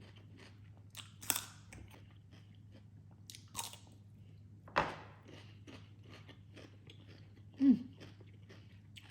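Close-up chewing and crunching of a spicy salmon salad with raw onion, many small wet clicks with a few louder crunches spread through, over a steady low hum.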